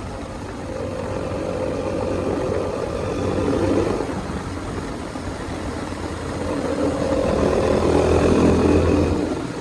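KTM single-cylinder motorcycle engine revved twice, each rev held for a few seconds before dropping back to a steady idle.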